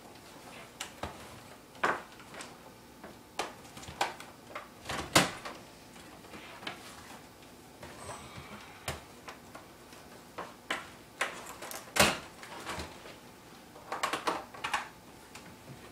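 Scattered clicks and knocks of plastic cable plugs and connectors being handled as an Xbox 360's power cable is plugged back in, with two sharper knocks about five and twelve seconds in and a run of small clicks near the end.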